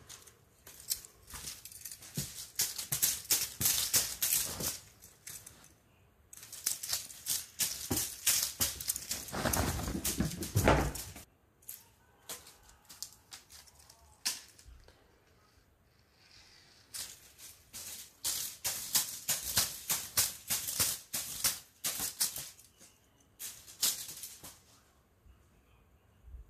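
Bursts of quick, irregular rattling and clicking, like a shaken rattle, coming in three spells with quiet gaps between them.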